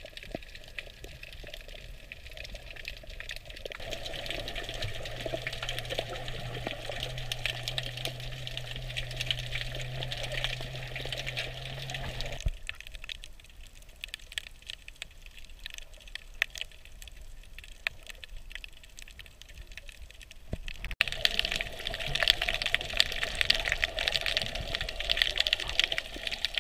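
Underwater sound picked up by a camera in its waterproof housing: a steady hiss crowded with small clicks and crackles, with a low steady hum through the middle part. Near the end it turns louder and busier, with rushing and bubbling as a freediver's bubbles rise around him.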